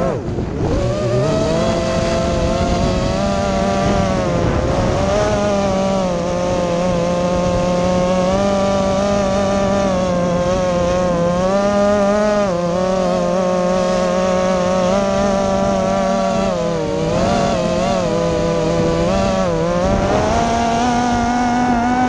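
Brushless motors and propellers of a 5-inch FPV racing quadcopter, heard through its onboard camera, whining continuously with the pitch rising and falling as the throttle changes.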